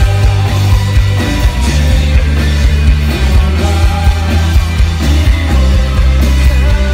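Live rock band playing loud through a festival sound system: dense, bass-heavy music with drums and electric guitar.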